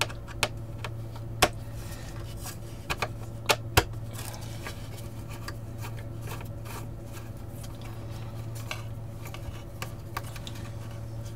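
A hand screwdriver backs out small screws fitted with spring washers from a circuit-board mount in a metal chassis, giving sharp metallic clicks and ticks. The clicks come several at a time in the first few seconds and are sparser and fainter afterwards, over a steady low hum.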